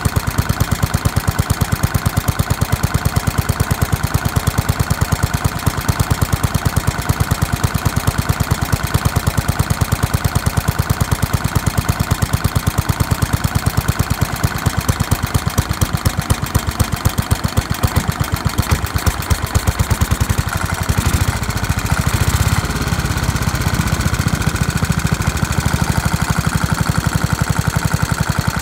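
Repainted Briggs & Stratton Model 23-B single-cylinder engine running with a steady, rapid firing beat. The beat blurs and evens out for a couple of seconds about twenty seconds in, then returns.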